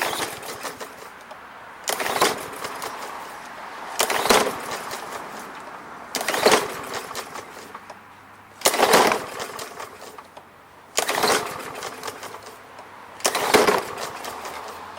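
Briggs & Stratton lawn mower engine being pull-started with the recoil cord, seven hard tugs about every two seconds, each cranking the engine briefly without it catching. It is a no-start mower with no primer, turning over but not firing.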